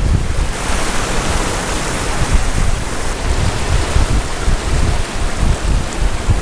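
Ocean surf breaking and washing over jetty rocks, with strong wind buffeting the microphone in gusts.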